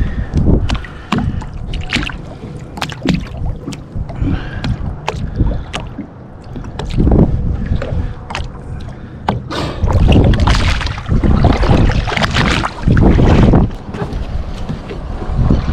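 Boat out on open water, with wind gusting on the microphone, loudest in gusts after about ten seconds, and a run of sharp knocks and slaps throughout.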